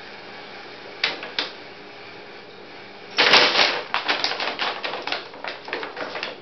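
Brown paper bag crinkling and rustling as a kitten pounces into it: two light taps about a second in, then from about three seconds in a loud burst of paper crackling followed by a run of smaller crackles while the bag shifts about on the floor.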